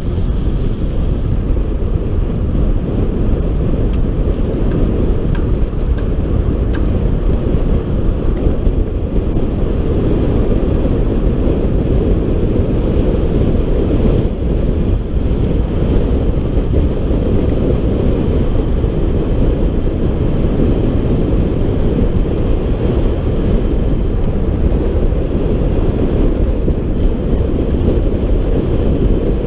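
Steady, loud wind rumble buffeting the microphone of a camera on a road bike descending at speed.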